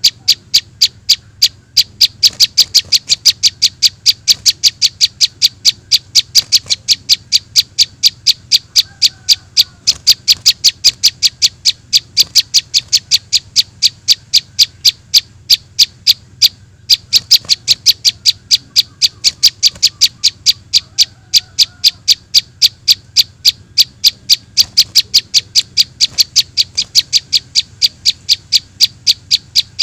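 Lure recording of juvenile prinia (prenjak) calls: a fast, steady run of high, sharp chips, about four or five a second, with one brief break past the middle. Fainter bird calls sound underneath.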